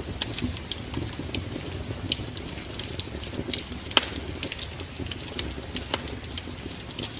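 Wood fire burning in a fireplace: irregular sharp crackles and pops over a low rumble of flames, with a louder pop about four seconds in.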